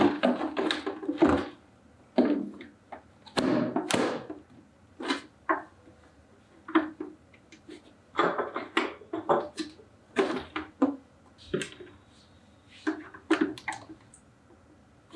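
Irregular hard-plastic clicks, knocks and rustles as RO water purifier parts are handled: filter cartridges pressed into their clips and plastic tubing worked onto the push-fit connectors.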